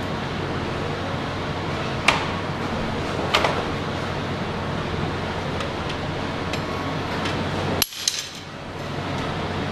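Metal parts of a retractable banner stand clinking as they are handled: two sharp clicks about a second apart, then a short clatter near the end, over a steady background rush.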